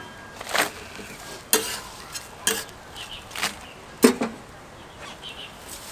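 A metal spatula knocking and scraping on a jianbing griddle as the rolled crepe is cut and folded: five sharp knocks about a second apart, the loudest near the end.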